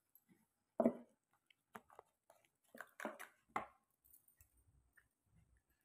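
Hands handling boxes and their packaging: a scatter of light knocks, taps and rustles, the loudest just under a second in and several more around the middle.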